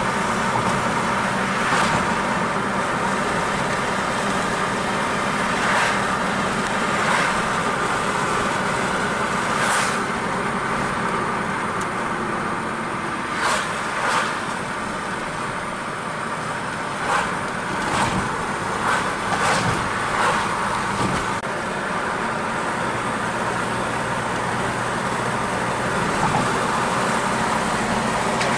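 Car driving on the road: steady engine and tyre noise, with a few short knocks now and then.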